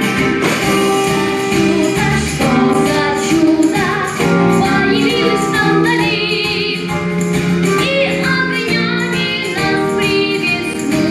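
A child singing a song into a microphone over instrumental accompaniment, with vibrato on a held note about six seconds in.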